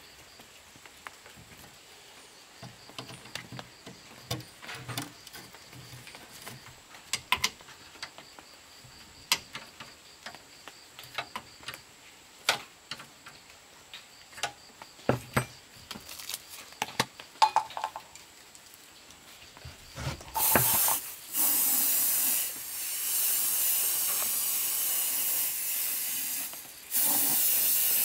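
Scattered light clicks and knocks of parts being handled, then about twenty seconds in a loud spraying hiss of paint being sprayed, in long bursts with two short breaks.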